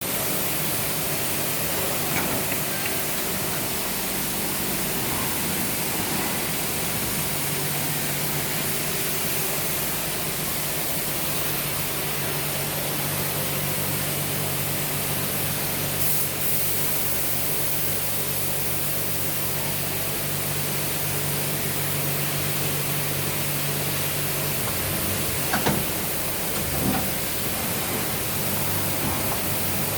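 Leadwell LTC-20BP CNC lathe running: a steady hiss over a low hum that shifts in pitch about seven seconds in and again near the end, with a few short clicks.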